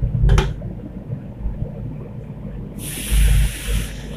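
Metal ladle scraping the aluminium wok once near the start, then about three seconds in a loud sizzle lasting about a second as ingredients hit the hot oil, all over a low steady rumble.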